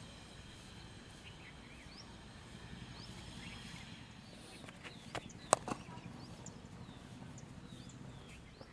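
Quiet outdoor background with birds chirping now and then, and a single sharp knock a little past halfway, followed by a fainter one just after.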